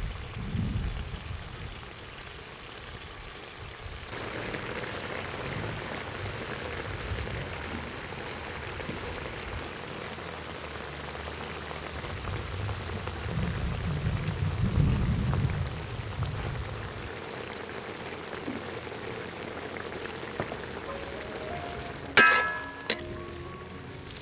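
Shrimp cooking in a thin sauce in a wok: a steady bubbling sizzle. About two seconds before the end, two sharp knocks.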